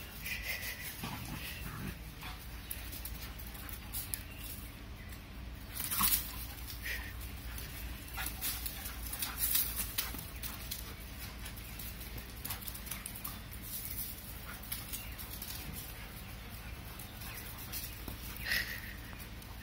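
German Shepherd puppies playing, with a few short, sharp yips now and then; the loudest comes about six seconds in and another near the end.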